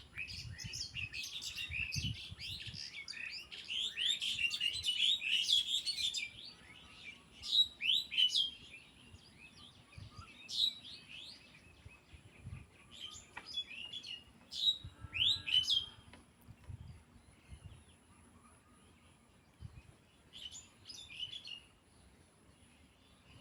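Small birds chirping: many quick, high chirps crowded together for the first few seconds, then scattered bursts of calls with pauses between them.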